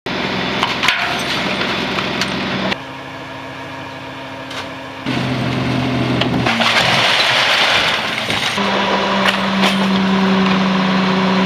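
Garbage trucks' diesel engines and hydraulic packers running in a quick series of cut-together clips, with a few sharp knocks. The sound changes abruptly about three seconds in, about five seconds in, and again a few seconds before the end, each time to a different steady hum.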